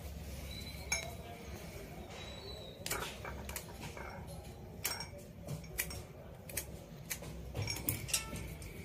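Small clicks, taps and clinks of tools and small parts being handled on a hard surface, scattered and irregular, with a cluster of them near the end, over a low steady hum.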